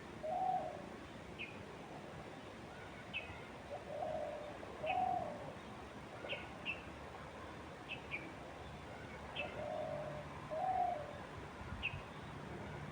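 A bird's low two-note coo, repeated about every five seconds, with short high chirps from a small songbird scattered in between, over a soft even hiss of wind.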